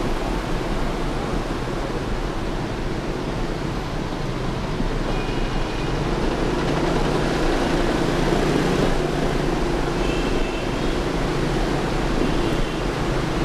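Motorbike riding through city traffic: steady engine, wind and road noise, getting a little louder about halfway through, with a few brief high beeps from horns.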